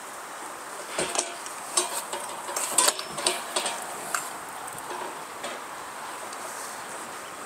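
Recycled-plastic wagon chicken coop clattering and knocking as it is pushed and turned on its wheels across the grass: a run of sharp clicks and knocks in the first few seconds, then quieter.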